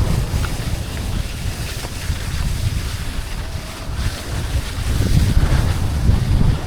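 Wind buffeting the microphone during a downhill ski run, a heavy fluttering rumble, with the hiss of skis sliding over snow.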